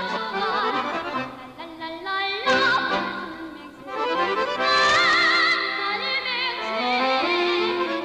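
A boy's solo singing voice performing a Korean children's song with strong vibrato and sliding ornaments, over instrumental accompaniment. The loudest part is a held, wavering high note about five seconds in.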